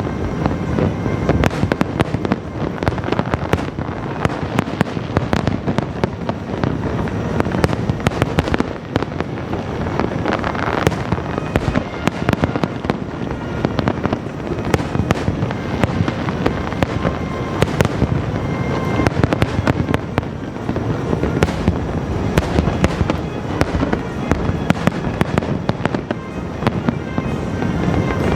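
Aerial fireworks display: a continuous barrage of shell bursts and crackles in quick succession, with no let-up.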